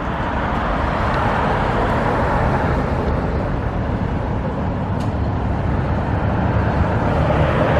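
Steady road traffic noise: vehicle engine hum and tyre rush, with a brief click about five seconds in.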